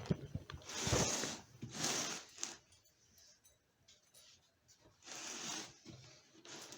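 Unboxing packaging being handled: four short rustling, scraping noises, about a second in, at two seconds, and again near the end.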